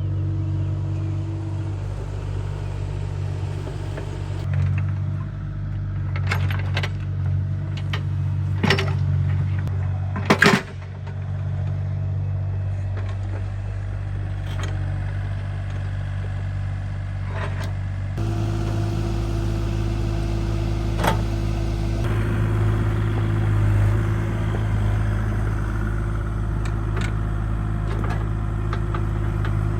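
Kubota excavator's diesel engine running steadily, with a series of sharp clanks and knocks between about 6 and 11 seconds in, the loudest near 10 seconds, as rocks are set into a rock wall. About two-thirds of the way through, the engine note shifts abruptly.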